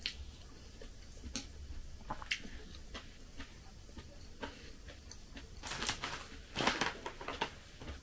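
Quiet close-up eating sounds: chewing and small mouth and spoon clicks from someone eating porridge with a spoon, with two short, louder rustles about six and seven seconds in.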